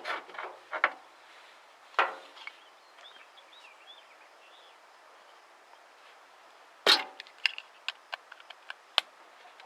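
Scattered sharp knocks and clicks, like hard objects striking each other. There is a stronger one about two seconds in, the loudest about seven seconds in, then a quick run of smaller clicks. Faint short chirps are heard around three seconds.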